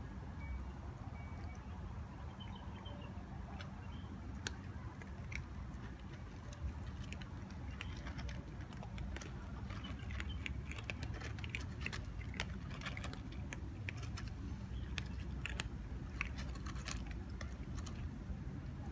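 Several cats crunching dry kibble from a bowl: a dense run of small crisp crunches, busier in the second half, over a steady low hum.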